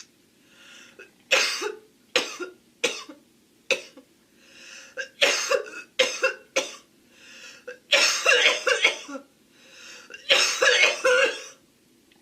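A young woman coughing: single sharp coughs about once a second at first, then tighter fits of rapid coughs, the last two the longest and loudest, with faint breaths drawn in before each fit.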